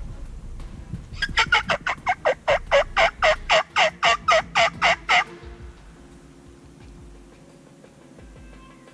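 Turkey calling: a fast, even run of about eighteen loud notes, each falling in pitch, lasting about four seconds and then stopping.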